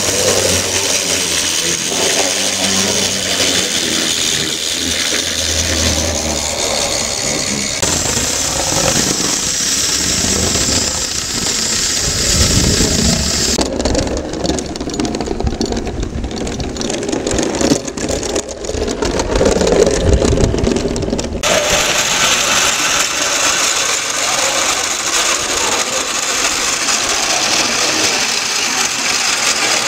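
Small clockwork model locomotives running on a garden railway track: the wound spring motor whirring and the wheels and tinplate bodies rattling along the rails. The sound changes with each locomotive, with a deeper rumble from the tin-toy electric locomotive in the middle.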